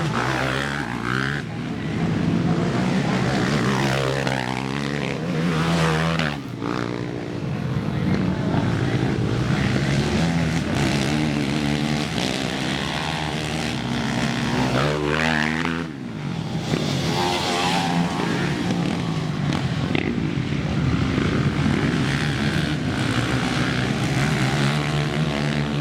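ATV engines racing on a dirt track, revving hard with their pitch rising and falling as the riders accelerate and shift, several engines overlapping.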